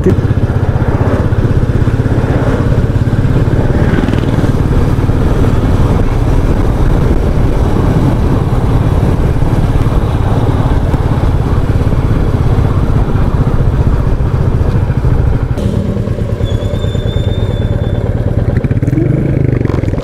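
Royal Enfield Meteor 350's single-cylinder engine running steadily while riding, heard from the rider's seat, easing off about four seconds before the end.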